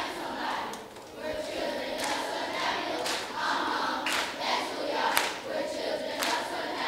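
A crowd singing together, with hand claps keeping time about once a second from about two seconds in.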